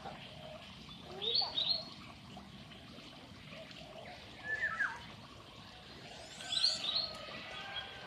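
Birds chirping in three short bursts, about a second, four and a half seconds and six and a half seconds in.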